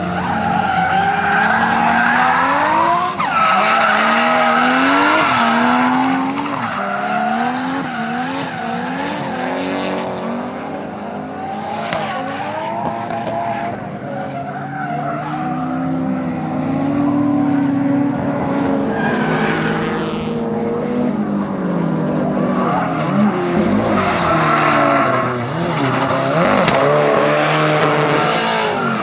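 Drift car engine revving hard, its revs climbing and dropping over and over as the throttle is worked through a slide, with tyres squealing throughout.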